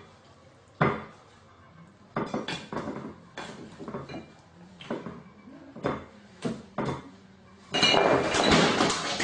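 A gull knocking about among crockery, probably pecking at food on a plate: a string of separate sharp clinks and knocks, then a louder, longer clatter near the end.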